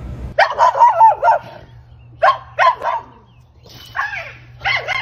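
Dog vocalising in four drawn-out, wavering calls, the first the longest, the others shorter and closer together.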